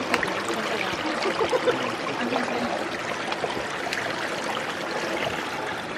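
Stream water running and trickling over rocks, a steady rushing with small scattered splashes and ticks.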